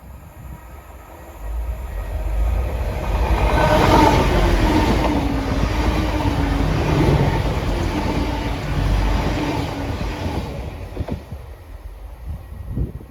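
A train passing close by: the rumble builds over a second or two, is loudest about four seconds in with a tone that falls slowly in pitch, then fades away near the end.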